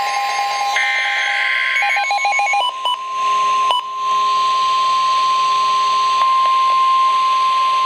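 NOAA Weather Radio Emergency Alert System alert. The last burst of the SAME digital header, a buzzy data burst, ends about two seconds in. A few short beeps follow, then the steady 1050 Hz weather radio warning tone over radio hiss.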